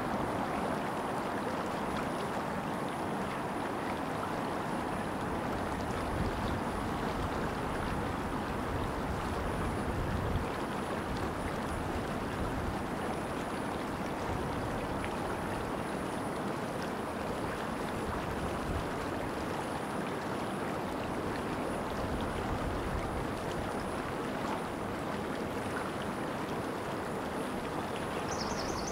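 Steady rush of a shallow mountain creek running over rocks into a lake, with low rumbles that come and go. A brief high chirp near the end.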